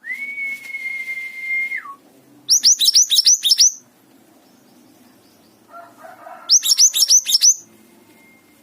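Songbird singing in strong form. It opens with a long, steady, high whistle that drops in pitch at its end. Then come two bursts of rapid, sharp, downward-sweeping notes, about eight notes each.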